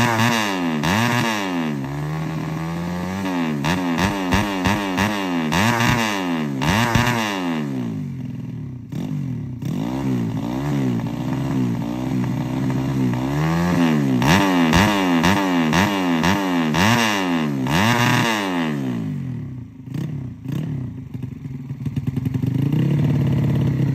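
Race-tuned Yamaha Jupiter Z four-stroke underbone engine with an open racing exhaust, revved on the stand in repeated throttle blips, its pitch rising and falling again and again. About twenty seconds in it drops back toward idle, then holds a steady raised rev near the end.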